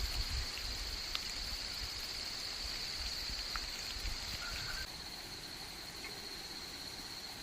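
Outdoor ambience: a steady high-pitched drone that drops in level about five seconds in, over a low rumble in the first half and a few faint ticks.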